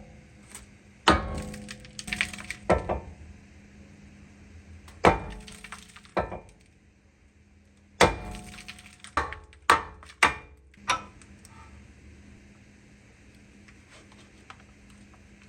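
A run of about ten sharp, irregular metallic clanks and knocks, some with a short ring, like tools and parts striking metal during car repair work; they stop about eleven seconds in.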